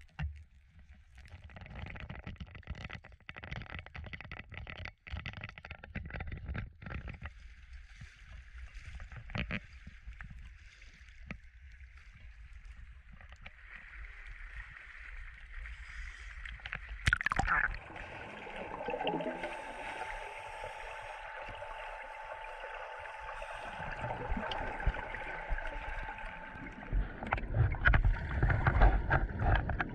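Rumbling knocks from the camera being handled, then water sloshing and gurgling around the action camera as a drysuit diver stands in the lake. Near the end comes the loudest part: repeated bursts of a scuba regulator's exhaled air bubbling past the camera underwater.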